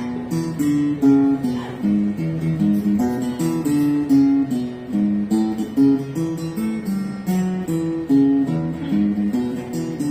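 Gibson acoustic guitar strummed solo in a steady rhythm, its chords and bass notes changing about every half second to second: an instrumental break in a country song, with no voice.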